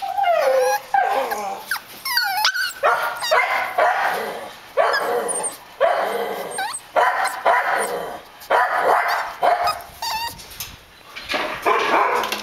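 Puppies barking and yipping in a string of short bursts, about one every second or so, with high whines rising and falling between them.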